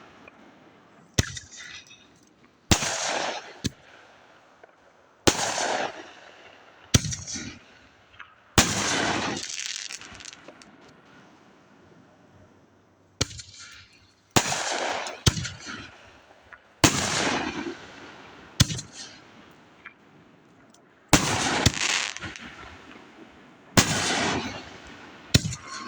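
Firework shells from a rack of mixed shells going off one after another: about a dozen sharp bangs at uneven gaps of one to four seconds, each trailing off over a second or more.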